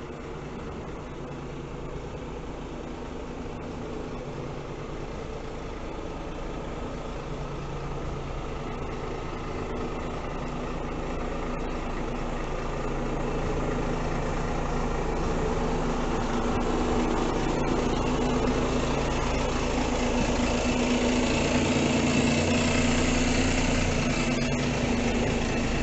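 Iveco S-Way 510 truck's six-cylinder diesel engine running at low, steady revs as the truck rolls slowly up to and alongside, growing steadily louder as it nears.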